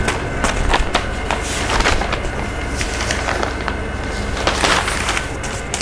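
Handling noise as a steel-and-wood tripod lamp's parts and their packaging are moved about: irregular knocks and clicks mixed with short rustles, over a faint steady hum.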